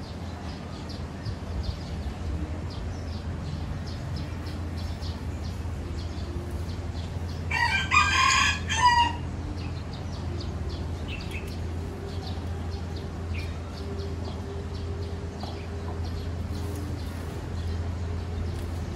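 A rooster crowing once, about eight seconds in, over a steady low hum.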